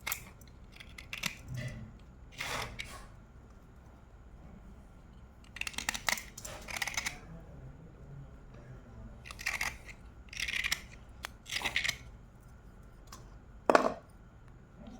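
Slate pencils being bitten and chewed close to the microphone: irregular bursts of dry, brittle crunching with short pauses between them, and one sharp, loud snap near the end.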